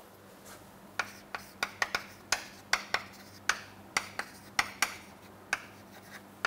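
Chalk tapping and scraping on a chalkboard as words are written: an uneven run of short, sharp taps, about three a second, starting about a second in.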